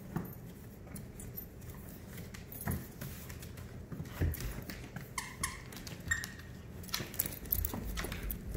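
Two dogs playing tug-of-war with a plush toy on a hardwood floor: claws clicking and scuffling, with a couple of brief high squeaks about five and six seconds in.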